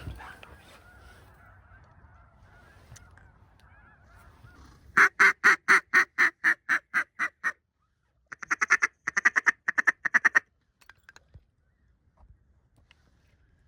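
Waterfowl calls: a run of about ten loud, evenly spaced quacks that fall off in loudness, then after a short pause a fast chattering series of calls.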